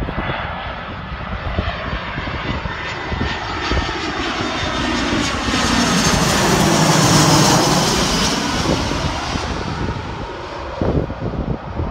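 Jet engines of an easyJet Airbus A320-family airliner on final approach, passing low overhead. The engine noise builds to a peak about seven seconds in, with a sweeping, phasing whoosh as it goes over, then fades as the jet heads away. Wind rumbles on the microphone near the end.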